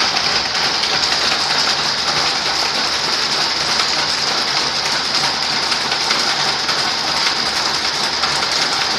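24-spindle high-speed braiding machine running, its bobbin carriers circling the track plate with a dense, steady metallic clatter and a high, hissing rush.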